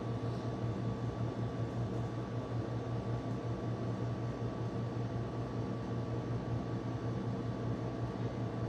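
Steady low hum with an even hiss over it, unchanging throughout, from a running fan or electrical appliance.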